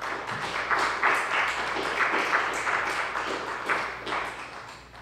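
A congregation applauding with many hands clapping together, the applause dying away near the end.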